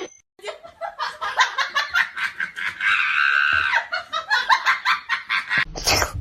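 People laughing in quick repeated bursts.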